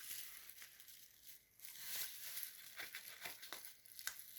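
Faint crinkling of packaging being handled, with irregular small clicks and crackles.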